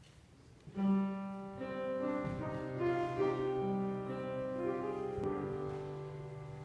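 Keyboard accompaniment, most like a piano, playing a slow introduction of held chords and a melody line. It begins about a second in.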